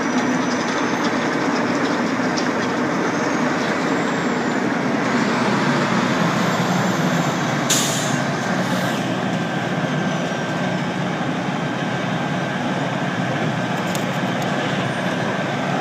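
Steady machinery running, with a faint high whine over it and a short sharp hiss about eight seconds in.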